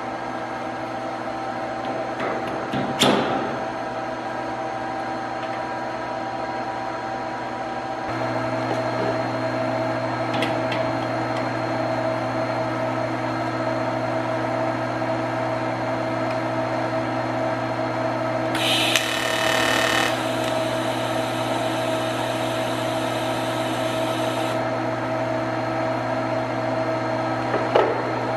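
A steady mechanical hum, slightly louder from about eight seconds in, with sharp metal clinks of hand tools about three seconds in and near the end, and a brief hiss around the nineteen-second mark.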